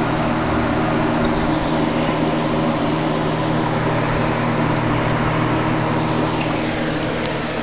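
Aquarium pump running: a steady mechanical hum under an even hiss.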